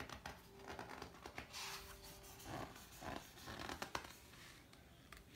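Thick pages of a large hardcover photo book being lifted and turned by hand: a few quick paper rustles and flaps over the first four seconds, then it settles.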